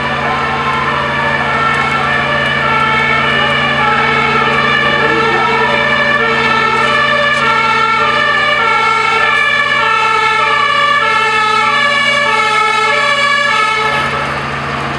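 Fire engines' two-tone sirens, more than one sounding at once out of step, over a steady low engine drone. The sirens cut off near the end.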